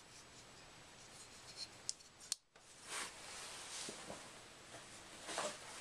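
A folding knife being handled: two sharp metallic clicks about two seconds in, like a blade or lock snapping, and later soft scraping of metal being worked.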